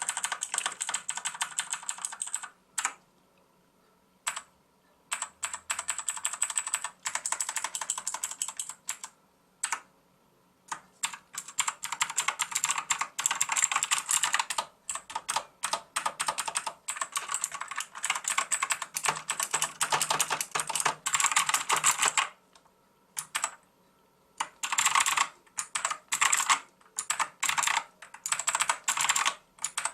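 Xenics STORMX TITAN MARK VII mechanical keyboard with clicky blue switches being typed on fast. The keystrokes come in dense runs, broken by several pauses of a second or two.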